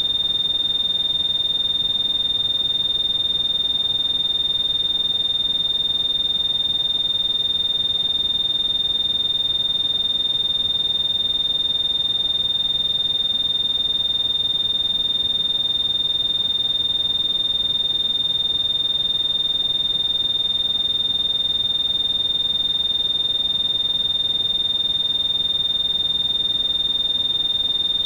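Synthetic tinnitus-masking sound: a steady, high-pitched pure beep tone held unchanging, over a soft bed of pink noise.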